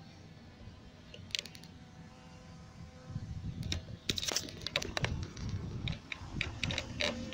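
Scattered sharp clicks and rattles, thickest in the second half, over a low rumble, with a faint steady hum underneath.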